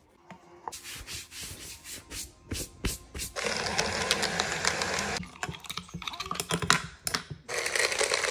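Rustling and clicking of protein powder being scooped and handled, then a Mialoe portable blender's motor whirring as it mixes a shake, running for about two seconds, stopping, and starting again near the end.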